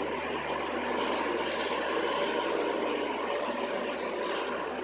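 Diesel locomotive engine running with a steady drone, heard across a railway station.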